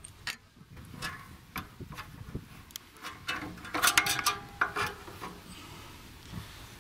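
Scattered metal clicks, knocks and rubbing as the cultivator's transport-wheel stand and its steel leg are handled and taken off, loudest about four seconds in.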